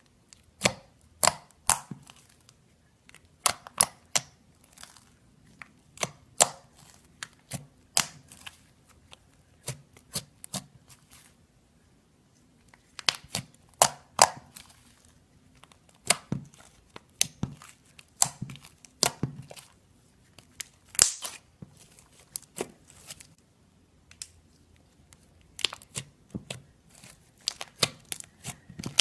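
Homemade slime being squeezed and stretched by hand, giving irregular sharp pops and clicks in clusters.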